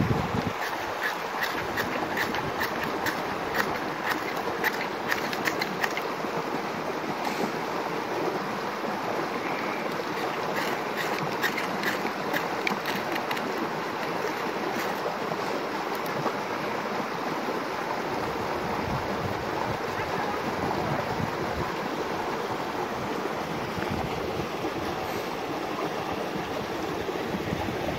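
Knife blade scraped in quick short strokes over a tin of fatwood shavings to light a fire. The strokes come in two runs, near the start and about ten seconds in, over a steady rushing noise.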